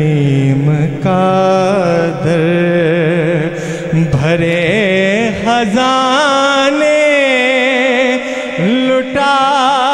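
A man singing an Urdu devotional kalam (naat) into a microphone in a chanting style. He holds long notes with wavering, ornamented pitch and takes short breaks between phrases.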